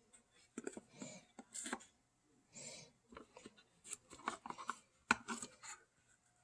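Close handling noises of small objects: scattered light clicks, taps and brief rubbing as the souvenir pieces are turned over and handled.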